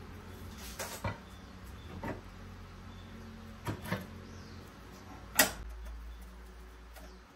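Metal clicks and knocks from a hand-operated rod-bending jig as its steel handle and pins are moved and seated: a couple of knocks about a second in, more around two and four seconds, and one sharp loud clank about five and a half seconds in. A low steady hum runs underneath and cuts off near the end.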